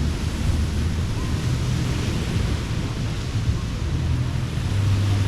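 Ocean surf washing ashore in slow swells a few seconds apart, under a steady low rumble of wind on the microphone.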